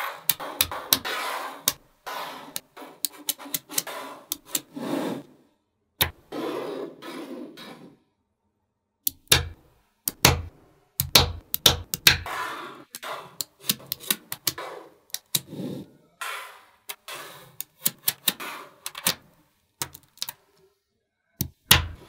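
Small neodymium magnetic balls clicking and snapping together as they are set in place one by one, in irregular sharp clicks with short stretches of denser rattling in between.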